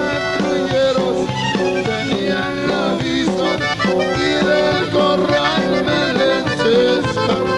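Tejano band music played live, led by accordion, with a man singing into a microphone over it.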